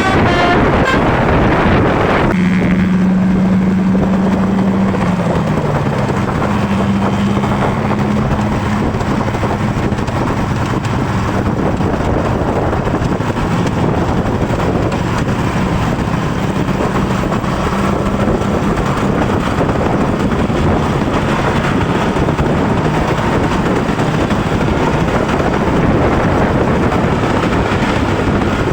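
Steady road and wind noise from a moving vehicle, with an engine drone that steps down in pitch about five seconds in.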